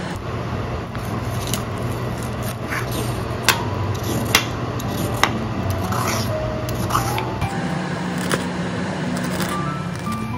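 Background music with sustained low tones and a few stepping notes, with about half a dozen sharp clicks or knocks scattered through it.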